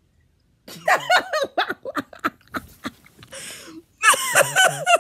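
A person laughing loudly in quick repeated bursts, starting just under a second in after near silence.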